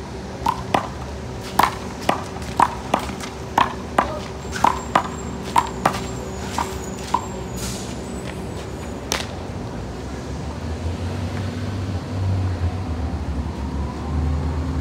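Sharp smacks of a rubber handball being hit by gloved hands and striking the concrete wall and court in a one-wall handball rally, about fifteen hits roughly half a second apart, stopping about nine seconds in. A low traffic rumble builds near the end.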